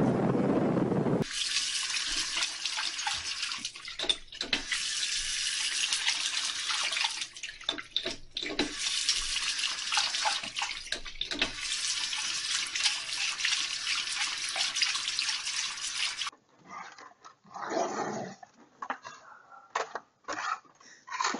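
A bathroom sink tap running, water pouring and splashing into the basin while a dog washes its paws under the stream, with a few short breaks. It opens with a second of wind rumble on the microphone, and the water cuts off suddenly about 16 seconds in, leaving a few faint knocks and one short louder sound.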